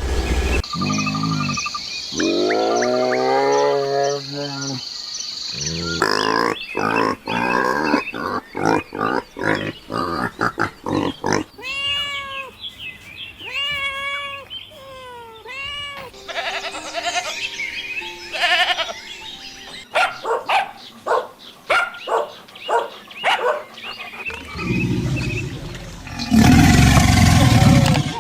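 A run of different animal calls one after another: a long pitched call, a patter of short sharp sounds, about four short rising-and-falling calls roughly a second apart, then a loud rough burst near the end.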